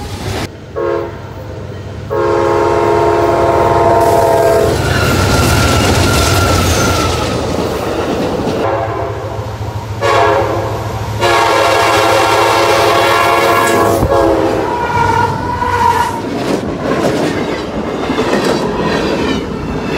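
Diesel freight locomotive air horn sounding a chord: two short toots near the start, a long blast about two seconds in and another about ten seconds in. Under and between them, freight cars rumble past at speed, wheels clacking over the rail joints.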